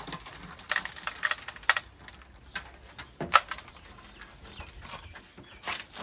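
Scattered clicks, taps and scrapes of hand work at a car's rear windscreen seal as the glass is worked loose, with one sharper knock about three seconds in.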